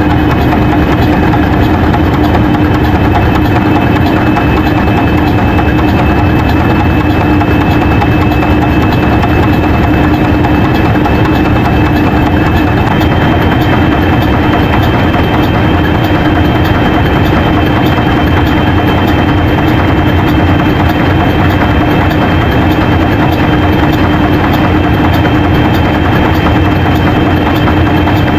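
Twin marine diesel main engines of a ro-ro ferry running at half ahead, heard inside the engine room: a loud, unbroken drone with a steady hum and a faint high whine.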